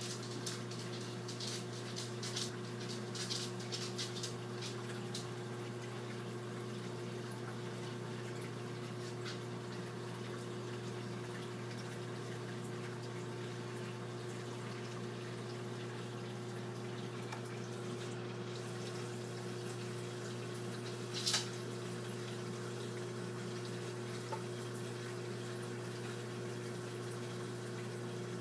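Saltwater aquarium pump and water flow: a steady low hum under trickling, dripping water, crackly for the first few seconds. There is one sharp click a little past two-thirds through.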